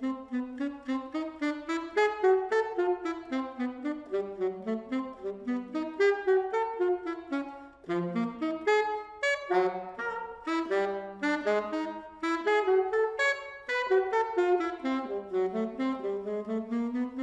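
Solo saxophone improvising a quick run of short notes that climb and fall in pitch, with a brief break about eight seconds in.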